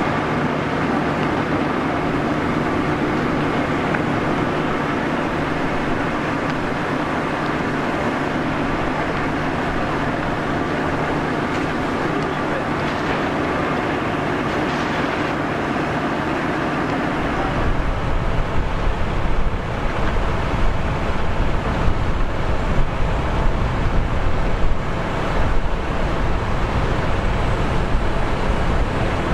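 Steady rushing of fire-hose water streams under a constant engine-like hum. About 17 seconds in, a louder, uneven low rumble joins, wind buffeting the microphone.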